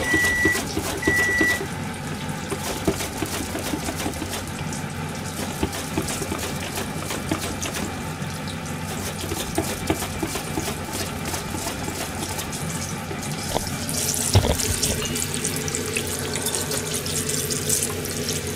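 Oil sizzling and crackling steadily around food deep-frying in a pan, louder and brighter from about 14 seconds in. Short electronic beeps sound twice near the start, and a thump comes just after the sizzle grows louder.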